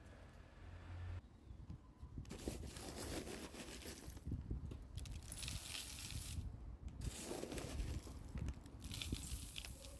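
Hands working potting soil and plants during repotting: rustling, scraping and crumbling noises in several stretches that start and stop abruptly.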